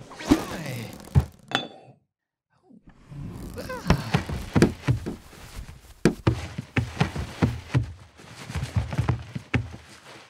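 Cartoon sound effects for rubbery arms stretching and piling up: a string of thunks and knocks mixed with short sliding squeaks, a brief pause about two seconds in, then a denser run of thunks.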